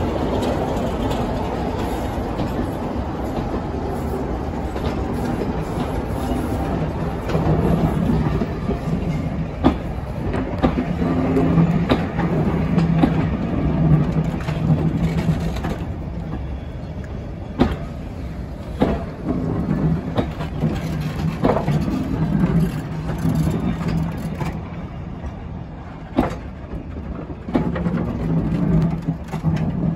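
A train hauled by Class 33 diesel locomotive 33002 rolling slowly past, the coaches' wheels clicking over rail joints at irregular intervals, with a low steady drone coming and going.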